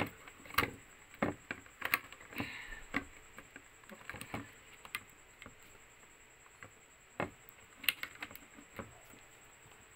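Irregular sharp plastic clicks and taps as a HyperX memory module is pressed down into a motherboard RAM slot and its retaining latch is snapped closed.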